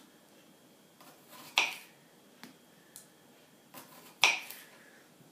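Kitchen knife cutting through a cucumber onto a wooden cutting board: two sharp chops about two and a half seconds apart, the second the loudest, with a few lighter taps of the blade between.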